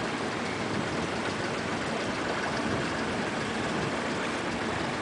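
Steady engine and water noise of a boat under way, with no distinct knocks or changes.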